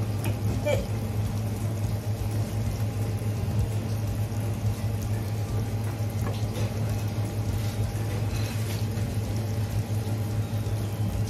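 Steady running water, as from a tap into a sink, over a steady low hum, with a few faint knocks.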